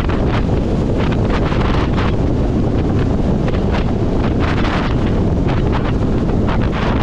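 Heavy wind buffeting on the camera microphone of a motorcycle at riding speed: a steady low rush with irregular gusts, loud enough to bury the engine.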